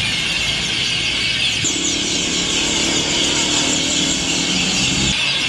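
A large flock of negrito birds chattering all at once, a dense, steady, high-pitched din of overlapping chirps. Underneath, an engine drones from about two seconds in and cuts off abruptly near the end.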